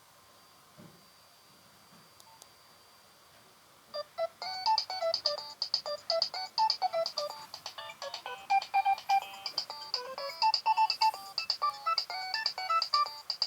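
Near silence, then about four seconds in a Nokia 3120 mobile phone ringtone starts playing: a fast electronic melody of quick, bright notes.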